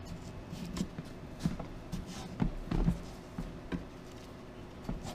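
A few light, irregular knocks and bumps as a homemade tumbler's silk-screen drum is handled and lifted out of a plastic tote bin.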